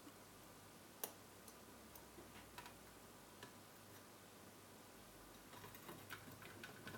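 Faint, scattered clicks and light taps from small parts being handled during reassembly of a car radio, with one sharper click about a second in and a cluster of clicks near the end.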